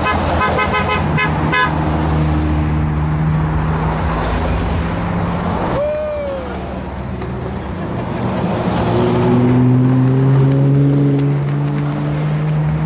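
Parade vehicles driving past with their engines running steadily. A horn toots several times in quick succession in the first second and a half, and another tone falls in pitch about six seconds in.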